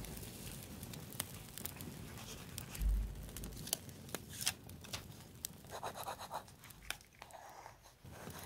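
A paper sticker being handled with metal tweezers and laid onto a journal page: light clicks and ticks of tweezer tips on paper, soft rustling and a scratching rub as the sticker is pressed down about six seconds in, and a dull thump about three seconds in.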